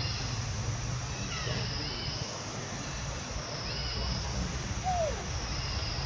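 Outdoor ambience: a steady high-pitched drone that swells and fades every couple of seconds, with a low rumble, a few faint bird chirps, and one short falling squeal about five seconds in.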